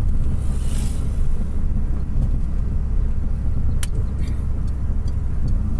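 Steady low engine and road rumble heard from inside the cabin of a moving car with a 1.6-litre 16-valve engine, cruising. One sharp click about four seconds in.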